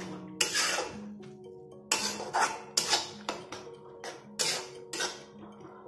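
Metal spatula scraping and stirring a thick eggplant and tomato masala around a metal kadai, several separate strokes, over background music with steady held notes.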